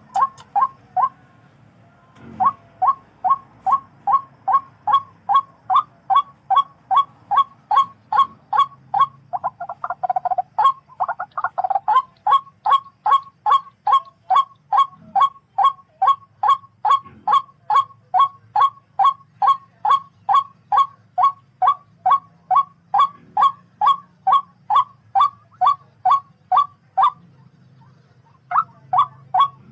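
Tikling, a Philippine rail, calling in a long run of short, sharp, evenly repeated notes, about three a second. The run breaks off briefly near the start and again near the end.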